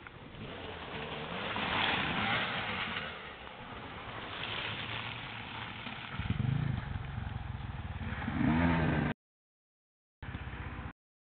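Off-road motorcycles riding past on a trail. From about six seconds in a nearby bike's engine revs, rising and falling in pitch as it passes close. The sound cuts out abruptly twice near the end.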